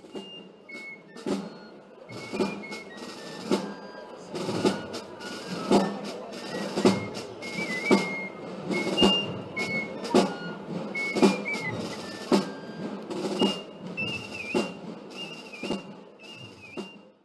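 Background music with a steady drum beat, about one beat a second, and a high melody on top; it stops just before the end.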